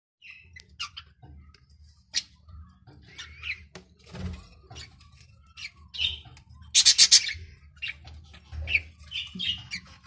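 A flock of budgerigars chattering, with many short chirps and warbling calls and a loud, rapid burst about seven seconds in, over a low steady hum.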